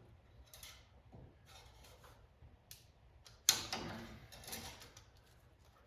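Faint handling noises of metal parts being moved, with one sharp knock and a short rattle about three and a half seconds in.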